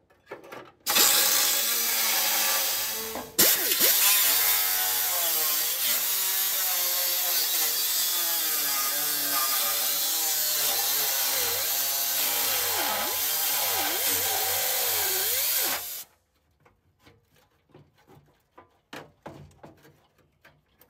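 Power tool cutting the steel door bar out of a G-body door. It starts about a second in, stops briefly and restarts, and its pitch sags and recovers as it bites into the metal. It cuts off suddenly about three quarters of the way through, followed by a few light knocks.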